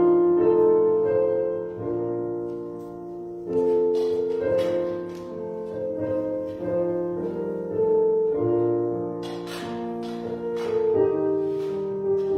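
Piano playing slow offertory music in held chords, the notes changing about every second.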